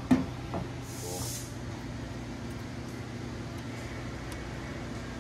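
Steady workshop hum with a single sharp knock at the start and a brief hiss about a second in; later, faint small clicks as a screwdriver tightens a clamp.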